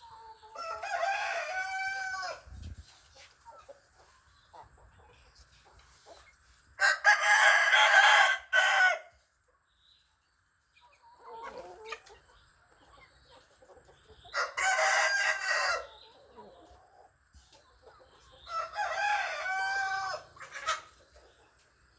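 Roosters crowing: four crows of about two seconds each, several seconds apart, with the second and third the loudest.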